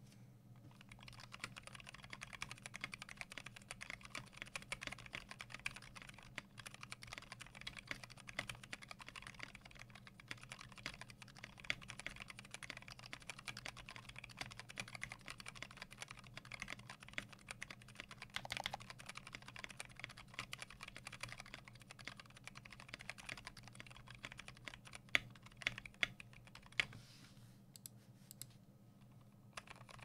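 Steady typing on a custom 60% mechanical keyboard, a Tofu60 with a brass plate, EVA foam in the case and lubed, filmed Gateron Brown KS-3 tactile switches: a dense run of quick keystrokes starting about a second in. A few louder strokes stand out near the end, just before the typing thins out.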